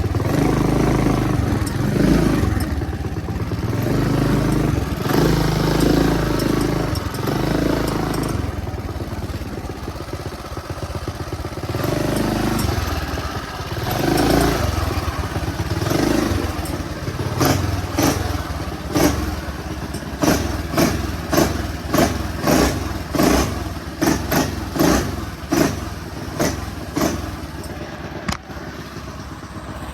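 Motorbike engine running under way, the revs rising and falling. Past the middle come a long run of sharp thumps or clatters, about two a second.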